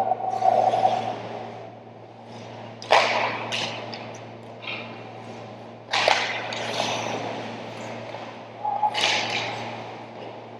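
Ice hockey play on an ice rink: three sharp stick-and-puck hits about three seconds apart, each followed by the hiss of skates scraping the ice, over a steady arena hum.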